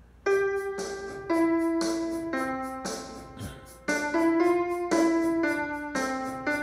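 Piano music: a melody of ringing notes and chords, a new one struck about every half second to a second, starting a moment in.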